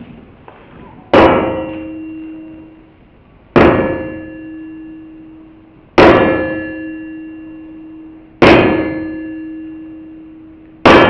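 Blacksmith's hand hammer striking iron heated near its melting point on an anvil: five slow, evenly spaced blows about two and a half seconds apart, each a sharp clang followed by the anvil's fading ring.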